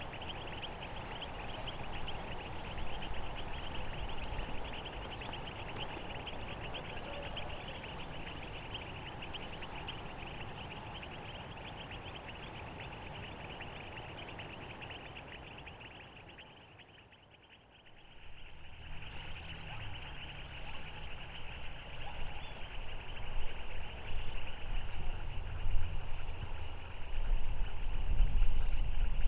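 Dense evening chorus of insects and frogs, a steady rapid trilling. It drops away for a moment a little past halfway, then returns, and a low rumble joins it in the last few seconds, loudest near the end.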